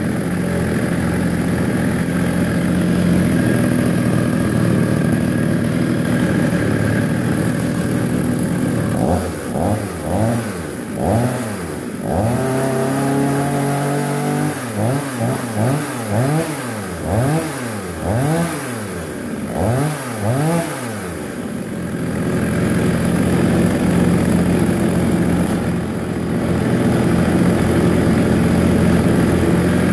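Chinese 52cc two-stroke chainsaw, fitted with a replacement cylinder and piston kit, running on the floor with its throttle blipped repeatedly: about a dozen quick revs that rise and fall, one held for a couple of seconds. Before and after the revs it runs at a steady speed.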